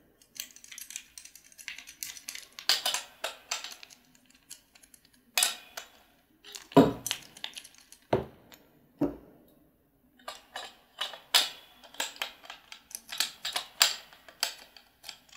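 Metal scissor-arm microphone stand and its microphone holder being handled and fitted together: a string of irregular clicks, rattles and knocks, with a few louder knocks between about five and nine seconds in.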